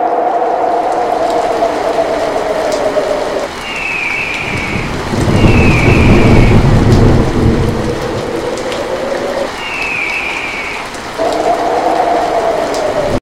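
Storm sound effect: steady heavy rain with a howling wind, and a long roll of thunder, loudest about five to eight seconds in. Three short, slightly falling screeching cries of a bird of prey, eagle-like, sound over the storm.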